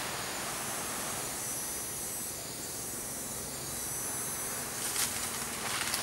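Tropical forest ambience: insects keep up a steady high hiss, and a few sharp clicks come near the end.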